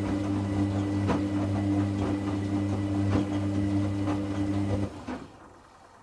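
Hoover Classica 1100 AC164 washing machine turning its drum in a rinse tumble: a steady motor hum with a regular knock about once a second, which stops about five seconds in as the drum comes to rest.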